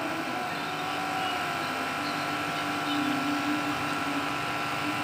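A steady mechanical hum or rush, even in level, with a faint low steady tone joining about two seconds in.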